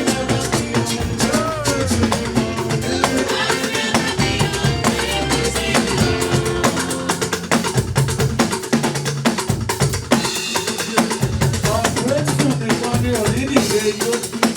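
Church choir singing a hymn over a drum kit with a steady beat and sustained bass notes.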